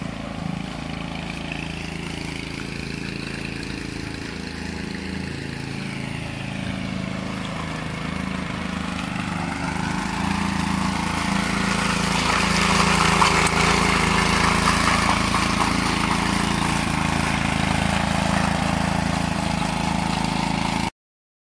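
Walk-behind concrete power trowel, its small engine running steadily as the rotating blades float the fresh slab. It gets louder about halfway through, then cuts off suddenly near the end.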